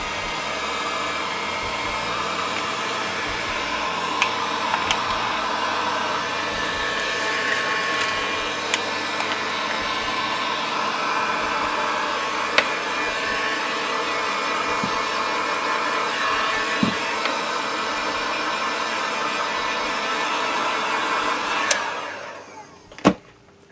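Electric heat gun blowing steadily as it shrinks heat-shrink wrap over a battery pack. It switches off about 22 seconds in and its fan runs down, and a single sharp click follows a second later.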